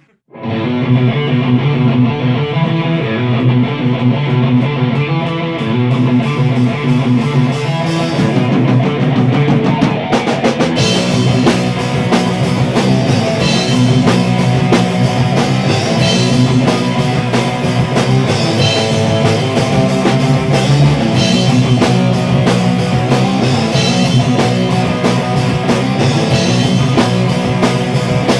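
Live rock band playing: electric guitar, bass guitar and drum kit, starting abruptly. The sound fills out with cymbals about eleven seconds in.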